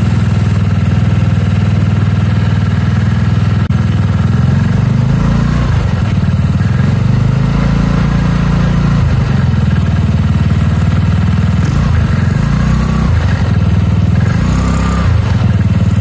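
GY6 150cc single-cylinder four-stroke engine running steadily at low revs, with the kart in gear and the drive pulling against the held brake.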